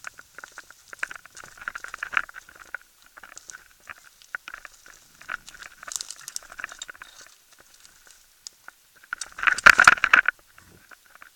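Mountain bike rattling and its tyres crunching over a rough, rutted dirt track, in uneven clicks and crackles, with a louder burst of rattling and crunching near the end.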